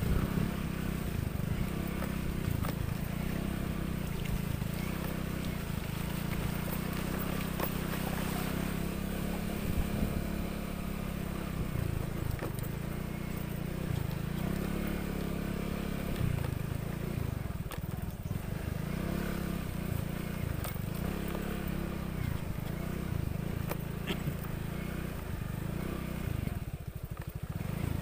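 Motorcycle engine running steadily on a rough dirt track, with a few short knocks from the bike over the bumps; it eases off briefly near the end.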